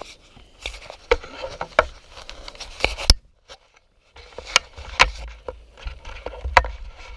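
Irregular sharp knocks, clicks and rattles of a Santa Cruz mountain bike being handled and lifted, with scraping and rubbing. The sound drops out briefly a little after three seconds, then the knocks return over a low rumble.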